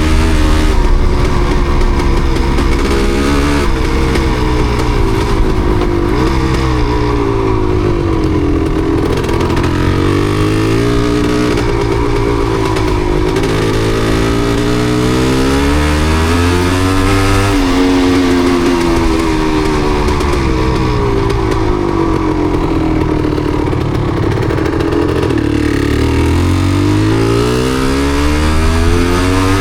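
Yamaha DT250MX single-cylinder two-stroke engine running under way, its pitch rising and falling again and again as the throttle is opened and closed.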